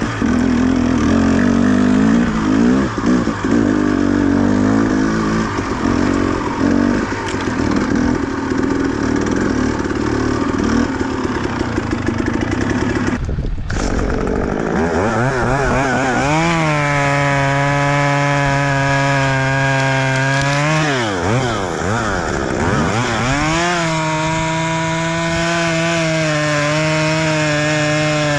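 A two-stroke engine runs unevenly for about the first half. It is followed by a chainsaw at full throttle holding a steady high note, whose revs drop and come back up twice, in the middle and near the end.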